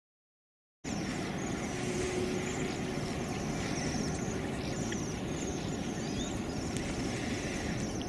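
Outdoor ambience that cuts in about a second in: a steady low rumbling noise with short high-pitched chirping trills repeating about once a second.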